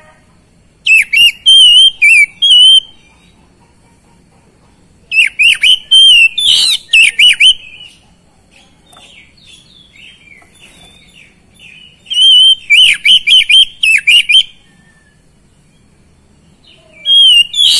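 Oriental magpie-robin (kacer) singing loud phrases of rapid, quickly bending whistled and trilled notes, four bursts a few seconds apart, with soft chattering notes in the pauses between.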